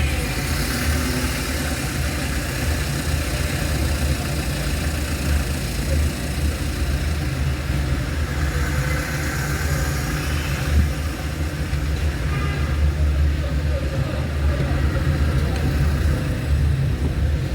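Car engine and road noise on the move: a steady low rumble with a hiss of tyres over it.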